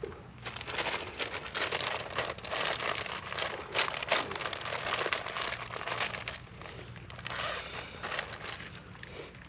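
Packaging crinkling and rustling as it is handled, in irregular spurts for most of the time before fading near the end.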